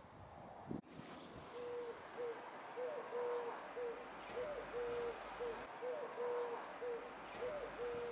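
A pigeon cooing: repeated phrases of low, level notes, some long and some short, from about a second and a half in.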